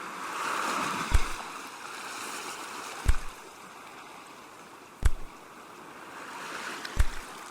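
Ocean waves washing in a steady hiss that swells and eases. A sharp low thump cuts through about every two seconds, four times, louder than the waves.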